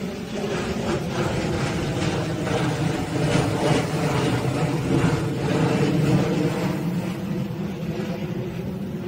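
Twin GE CF34 turbofan engines of an Embraer ERJ-175 airliner climbing out overhead after takeoff: a steady jet rumble that swells to its loudest in the middle and fades as the aircraft moves away.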